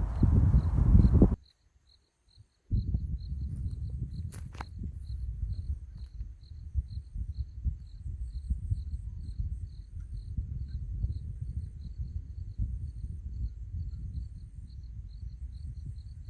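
Wind blowing in a low, rumbling rush. It drops out for about a second early on, then resumes more softly. Over it, crickets chirp steadily at a high pitch, about three chirps a second.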